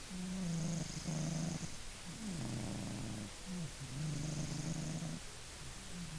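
Maine Coon cat snoring: a low pitched snore with each breath, several in a row, some sliding down in pitch.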